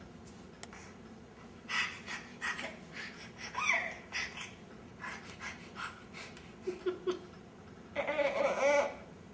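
Baby making short, breathy panting sounds, several in quick succession, then a single high-pitched voiced squeal lasting about a second near the end.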